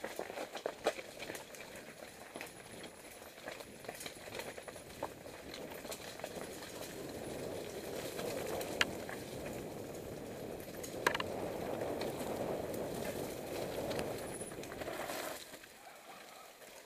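Mountain bike riding down a loose, rocky trail: tyres crunching and rolling over stones, with clicks and rattles from the bike, and a couple of sharp knocks about nine and eleven seconds in. The rolling noise grows louder from about six seconds in and eases off near the end.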